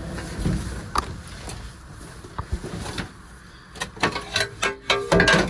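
Knocks and clunks of a floor lid being lifted and moved aside, with one sharp knock about a second in and a run of knocks near the end.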